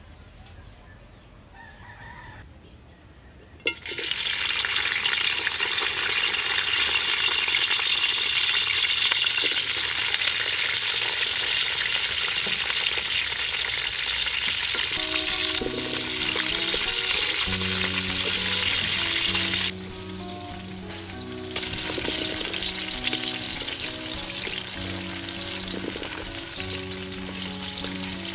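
Vegetables frying in hot oil in a steel wok: a loud, steady sizzle that starts suddenly about four seconds in, as the okra and green chilies hit the oil, and later comes with the scrape of wooden chopsticks turning them. Background music with a melody comes in about halfway.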